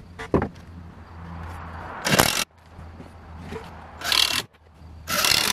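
Three short scrapes, about half a second each, of a level and a wooden batten rubbing against rough-sawn board siding as the batten is slid into line and levelled, over a low steady hum.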